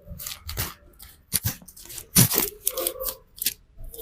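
A barber's hands on a client's head during a head massage: a quick run of sharp slaps and rubbing strokes on the scalp and hair, the loudest a little over two seconds in.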